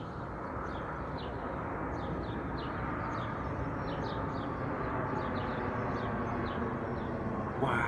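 Gulfstream business jet passing overhead: a steady jet engine rush that grows gradually louder. Birds chirp repeatedly over it.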